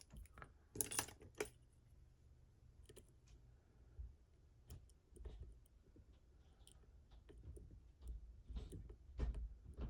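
Faint, scattered small metallic clicks and scrapes of lock picks working inside a Mottura CP6 pin-and-rotor lock, a slider pick prodding at the rotors under light tension. The clicks are denser about a second in, with soft handling bumps.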